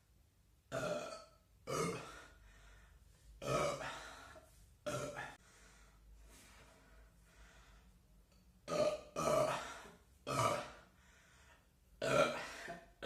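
A teenage boy burping over and over: about eight short belches, four in the first five seconds, then a pause of about three seconds, then four more.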